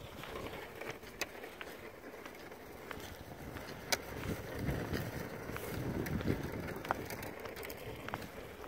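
Boots walking across frozen lake ice, with a few sharp clicks on the ice surface, the loudest about four seconds in.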